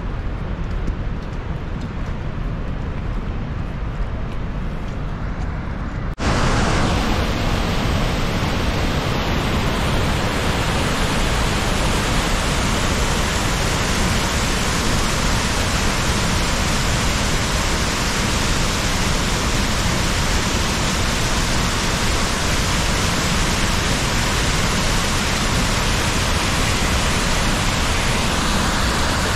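Rhine Falls water rushing. At first it is a duller, quieter roar heard across the river. A sudden cut about six seconds in brings the much louder, full, hissing rush of white water pouring over rocks close by.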